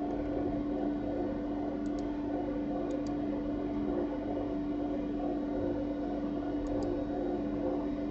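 Bread machine humming steadily at one constant pitch, with a few faint computer-mouse double-clicks about two, three and seven seconds in.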